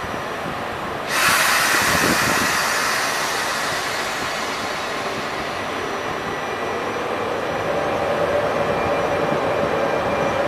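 Trenord E464 electric locomotive pulling a regional train out of the station at low speed. About a second in a sudden loud hiss starts and fades over the next few seconds, and a steady hum from the locomotive grows louder near the end as it gathers speed.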